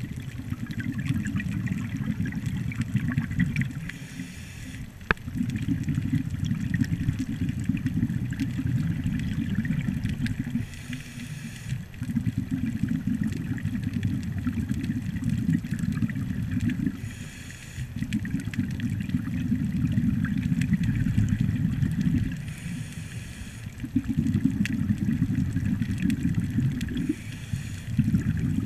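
Scuba diver breathing through a regulator, heard underwater: long stretches of low bubbling from exhaled air alternate with short hissing inhalations, about five breaths roughly five to six seconds apart.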